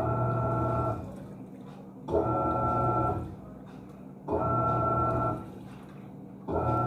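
Panasonic 14 kg washing machine agitating its load: the drive motor gives a steady pitched hum for about a second, then pauses while the water swishes, and this repeats about every two seconds.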